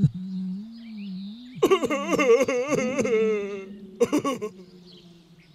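The cartoon big bad wolf's voice whimpering and wailing, feeling left out. A held moan is followed, about a second and a half in, by a louder wavering sob, and then a long falling note that fades away.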